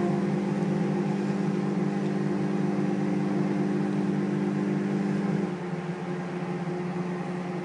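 Microwave oven running with a steady electrical hum while it cooks a mug cake; the hum drops a little quieter about five and a half seconds in.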